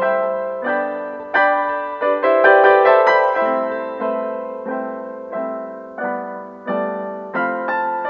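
Slow background piano music: chords struck about every two-thirds of a second, each ringing and fading, with a busier run of notes about two to three seconds in.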